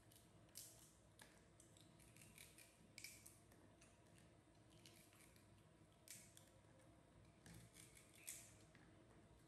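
Faint, irregular crisp snips and crunches of raw carrot, cut into slices by hand and bitten by baby monkeys, a dozen or so sharp little clicks spread unevenly.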